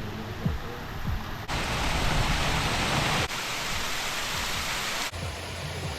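Rushing water of a creek and small waterfalls, a steady hiss. It jumps in level and tone three times where short clips are cut together, loudest about a second and a half in.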